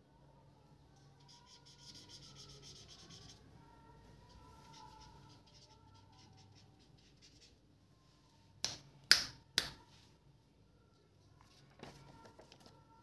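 Green highlighter marker scratching across paper in quick strokes, then three sharp clicks past the middle and light paper handling near the end.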